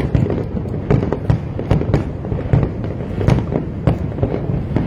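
Fireworks display: a rapid, irregular string of bangs and cracks, several a second, over a continuous low rumble of overlapping bursts.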